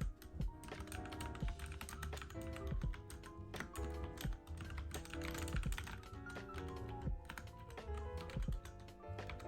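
Mechanical keyboard typing in steady, irregular runs of key clicks, over soft background music with held notes.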